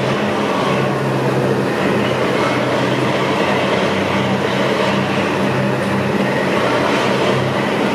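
Lifeboat's diesel engines running steadily as the boat is recovered onto its slipway, with churning water and a constant low engine note under a heavy rushing noise.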